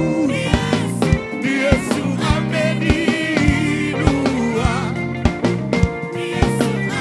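Live gospel worship song: a praise team and congregation singing together over a band with drum kit and keyboard, the drums keeping a steady beat of about two strikes a second.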